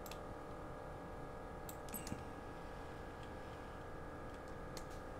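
A few faint computer mouse clicks, near the start, around two seconds in and near the end, over a steady background hum.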